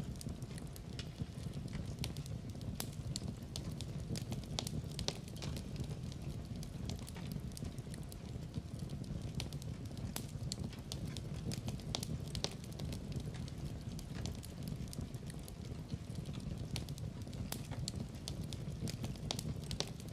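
Wood fire burning in a fireplace: a steady low rumble of flame with frequent irregular crackles and pops.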